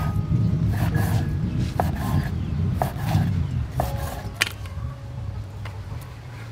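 Kitchen knife cutting through squid on a wooden chopping board, with a few sharp knocks of the blade against the board.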